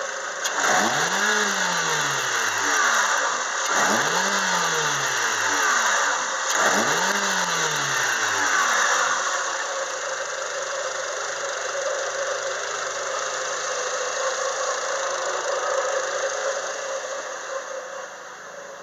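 Peugeot Partner's 1.6-litre 16-valve four-cylinder petrol engine revved three times, each rise in pitch followed by a fall back down, in the first nine seconds. It then settles into a steady idle that grows fainter near the end.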